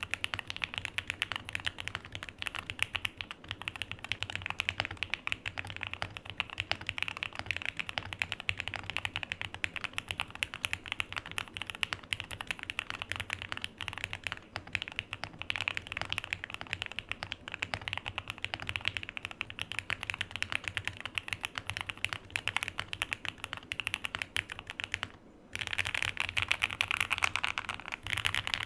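Fast typing on a mechanical keyboard fitted with Ioncaps Ancient Greek PBT keycaps: a continuous stream of key clacks as a typing sound test, pausing briefly about 25 seconds in.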